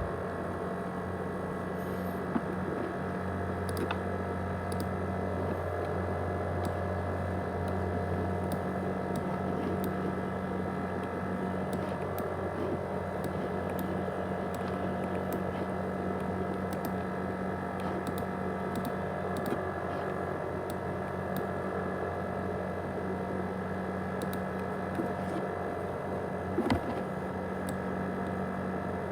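ASUS X543UA laptop running with a steady whirring hum of several tones, the noise likened to a jet engine. A lower part of the hum drops away about eight seconds in, and faint ticks sound now and then.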